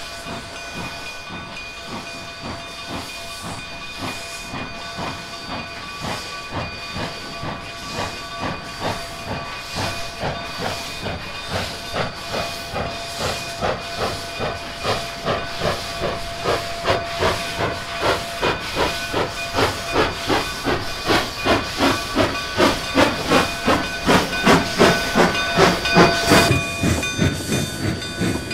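D&RGW K-36 2-8-2 narrow-gauge steam locomotive working a train away from a stand. Its exhaust chuffs come in a steady beat, a little over two a second, growing louder as it approaches. Under them run a steady steam hiss and a high steady whine.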